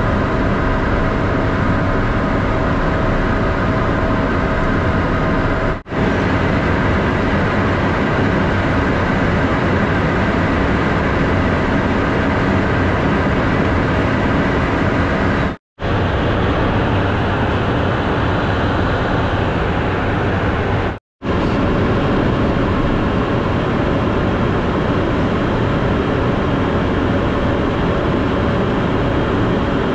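Steady cockpit noise of a Cessna Citation M2 twin-turbofan business jet in flight: an even rush of air and engine noise with several steady hums under it. It breaks off for an instant three times, about six, sixteen and twenty-one seconds in.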